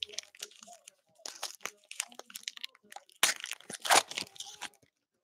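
A foil trading-card pack wrapper being torn open and crinkled by hand, in several crackling bursts, the loudest about three to four seconds in.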